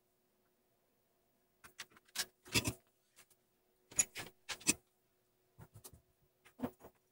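Irregular sharp clicks and knocks from a circuit board and soldering iron being handled on a workbench while a fuse is desoldered. They come in three clusters: about two seconds in, about four seconds in, and near the end, over a faint steady hum.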